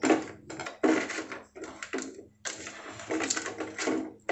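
A hand kneads and rubs spices into raw chicken leg pieces in a stainless steel bowl: a series of wet squishing, rubbing strokes, with a longer stretch of steady rubbing in the second half.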